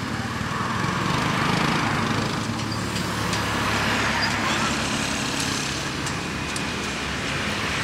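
A motor vehicle engine running steadily nearby, with a low hum and a hiss of road noise that swells slightly about a second in.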